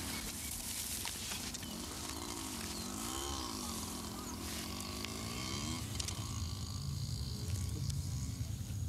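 Dry rice straw and a cloth sack rustling as snake catchers pull a cobra from its burrow and bag it. From about two to six seconds in, a wavering tone rises and falls over it, with a steady low hum underneath.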